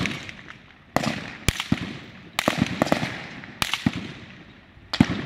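Distant gunshots: about eight sharp cracks, fired singly and in quick pairs at irregular intervals, each trailing off in an echo.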